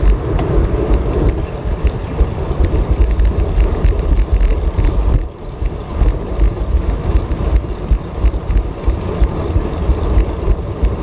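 Wind buffeting the microphone of a moving bicycle, a loud, fluttering rumble with road and ride noise beneath it, easing briefly about five seconds in.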